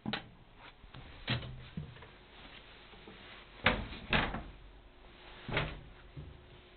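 A series of knocks and thumps, about six at uneven spacing, the loudest a pair about halfway through.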